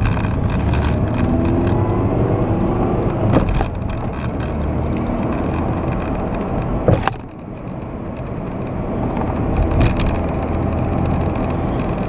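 A car driving, engine and road noise heard from inside the cabin, with a few sharp clicks. The noise drops suddenly about seven seconds in, then slowly builds again.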